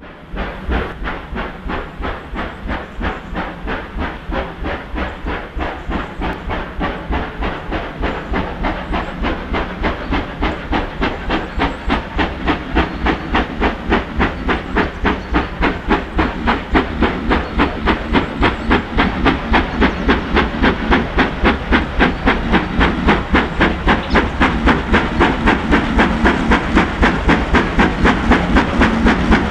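Steam locomotive working a train, its exhaust beating steadily at about three chuffs a second and growing louder as it approaches.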